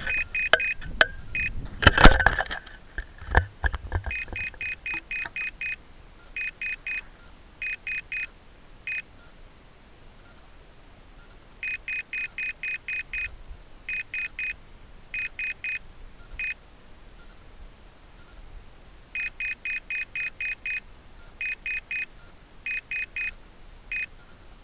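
High-power rocket landing under its parachute with a few hard thumps and rattles, the loudest about two seconds in. Then the rocket's onboard altimeter beeps out its peak altitude of 7,331 feet: short high beeps in groups of seven, three, three and one, repeated three times.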